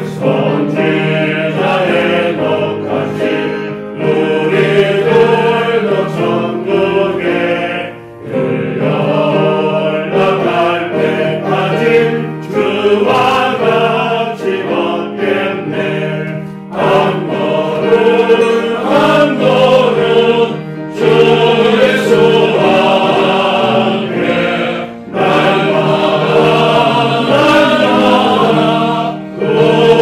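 A congregation singing a hymn together, in sung phrases with several short breaks between them.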